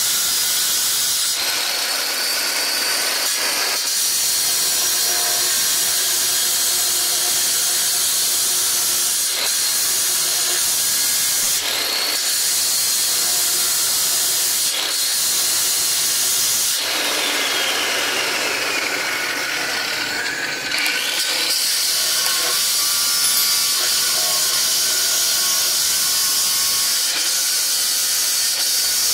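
Handheld electric marble cutter wet-cutting the edge of a marble slab: a continuous high grinding hiss with a motor whine. About two-thirds of the way through, the whine sags in pitch as the blade is loaded and then picks back up.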